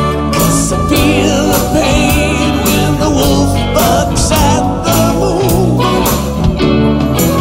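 Modern blues-rock song playing: electric guitar over bass guitar and a steady drum beat.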